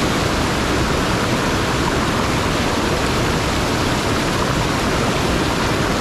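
Mountain stream rushing over rocks: a loud, steady rush of water without a break.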